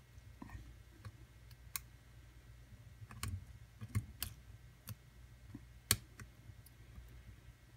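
Metal lock pick and tension wrench working the pins of a pin-tumbler challenge lock: scattered faint clicks, with a sharper click about six seconds in.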